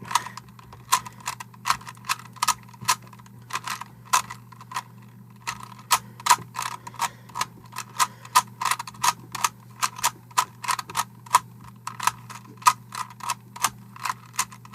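Rubik's Cube being scrambled by hand: quick, irregular plastic clicks as the layers are twisted, a few turns a second.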